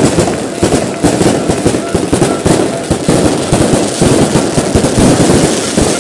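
Fireworks going off: a rapid, unbroken string of bangs and crackling.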